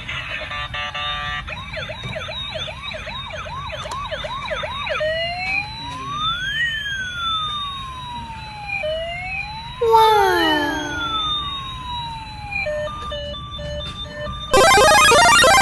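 Toy ambulance's electronic siren cycling through its modes. It starts with a fast repeated rising yelp, then a slow rising and falling wail, with a loud falling sound effect about two-thirds of the way in, then an alternating two-tone hi-lo. Near the end it cuts to a sudden, loud, busy electronic jingle.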